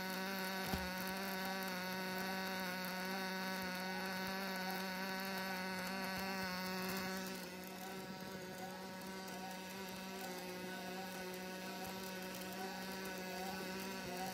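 Automatic piston-rod welding machine at work: a steady electrical buzz with a hum and several pitched overtones that waver slightly and regularly. About halfway through, the hiss above the buzz drops away and the whole sound gets a little quieter.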